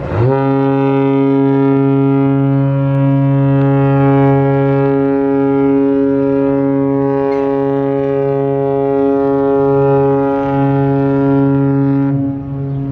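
Ship's horn sounding one long, loud, steady blast, sliding up into pitch at the start and stopping about twelve seconds in.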